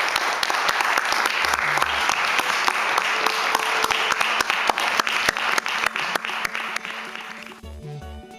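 Audience applauding, a dense clapping that thins out about seven seconds in. Guitar music starts near the end.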